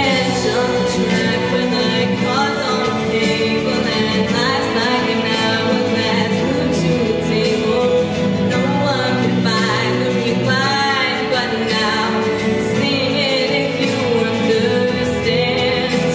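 A female solo singer singing a pop song into a microphone, amplified, over instrumental accompaniment, with a wavering held note about ten seconds in.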